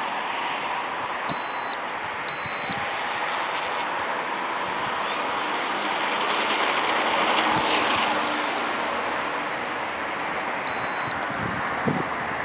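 FMS T-28 Trojan radio-controlled plane's electric motor and propeller running up for takeoff, growing louder over several seconds and then fading as it climbs away. Three short high beeps cut in, two near the start and one near the end.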